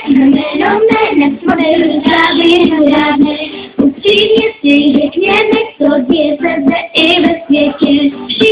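Children singing a melodic song, voices carrying the tune throughout.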